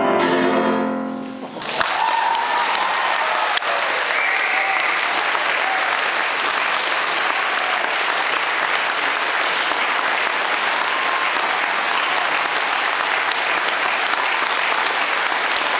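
Violin and piano end a piece on a held final chord that fades out in the first second and a half. Then the audience breaks into steady applause.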